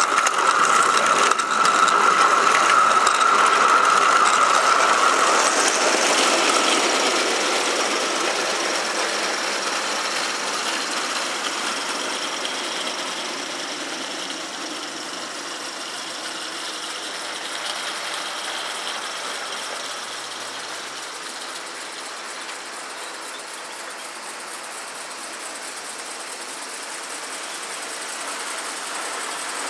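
Steady mechanical whirring with a high whine while a live-steam Gauge 1 model locomotive is steamed up. From about six seconds on it fades to a softer, steady whir.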